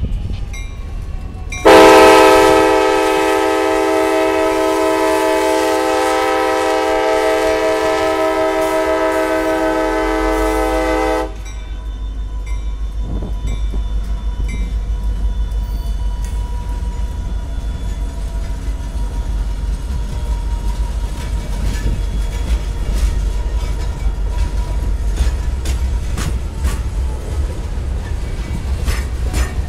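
A CSX freight locomotive sounds one long horn blast of about ten seconds, a chord of several tones. The horn cuts off, and the freight cars roll past with a steady low rumble and wheels clicking over the track.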